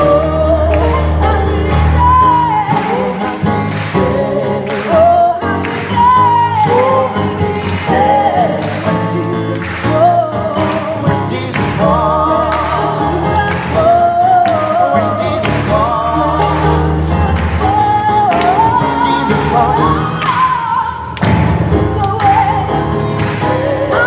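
Gospel choir singing with instrumental accompaniment: wavering sung melody lines over a steady bass and a regular beat.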